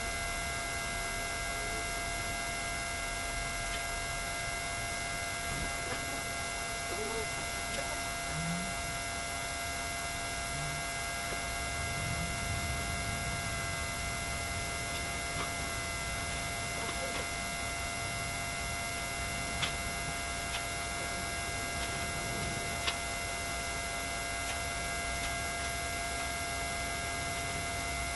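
A steady electrical hum made of several high, unchanging tones, with a few faint ticks scattered through it.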